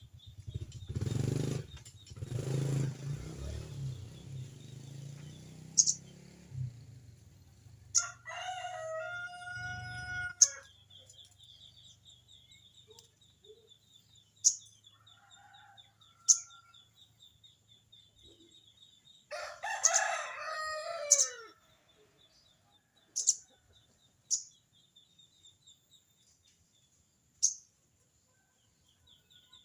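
Birds calling: a rapid, high rattling chatter runs through most of the stretch, typical of the sogon's 'crecet cerecet' call, cut across by about nine sharp high chip notes. A chicken calls about eight seconds in, and a rooster crows loudly about twenty seconds in. A low rumble fills the first few seconds.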